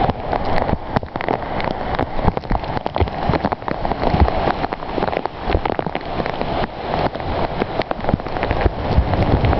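Heavy rain falling, drops hitting a nearby surface as many small irregular taps over a steady hiss.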